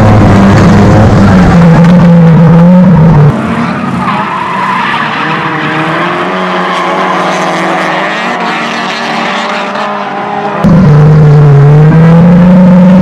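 Drift car engine held at high revs with tyre noise, heard on board during a tandem drift. About three seconds in it cuts to several cars drifting together heard from trackside, quieter, with engines and tyre squeal. Near the end it cuts back to the loud on-board engine.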